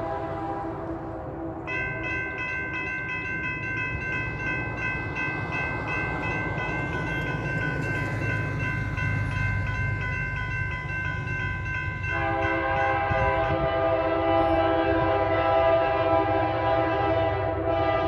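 Norfolk Southern locomotive horn sounding from an approaching train, a chord held throughout over the train's low steady rumble. The chord shifts higher, with a wavering pulse, about two seconds in, and drops back lower around twelve seconds, getting louder from there.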